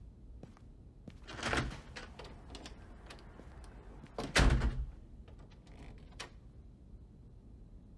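A door shutting with one heavy thud about four and a half seconds in, after a softer swell of movement a second and a half in, and followed by a few light clicks.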